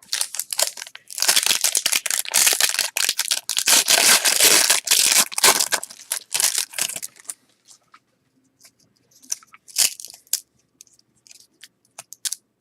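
A 1992-93 Fleer Ultra basketball card pack wrapper being torn open and crumpled: dense crackling for about seven seconds, then scattered lighter rustles and clicks.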